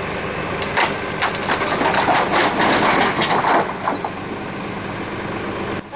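A quick run of sharp cracks and crunches, dense for about three seconds and then thinning out, like wood and branches snapping. A steady engine hum runs underneath.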